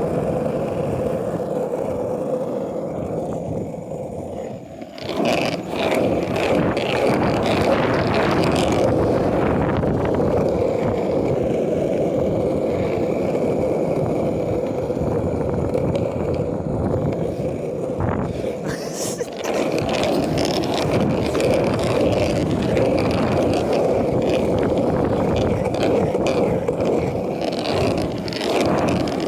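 Steady rumble of wheels rolling over a paved road while riding, with a constant hum running through it. It eases briefly about four seconds in and again near nineteen seconds, with a few clicks as it picks back up.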